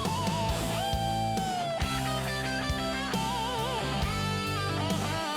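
Background rock music led by an electric guitar playing a melody of bent, wavering notes.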